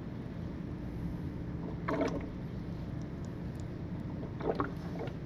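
Sulfuric acid electrolyte gurgling through a clear plastic fill tube into a cell of a new wet lead-acid motorcycle battery, in two short gurgles about two and a half seconds apart, over a steady low hum.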